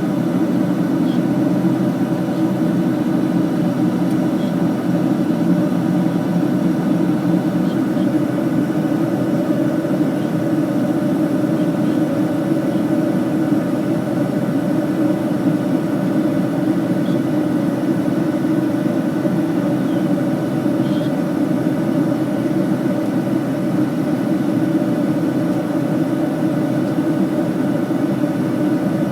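Steady cabin noise of an airliner in flight, a constant drone of engines and rushing air that stays level throughout.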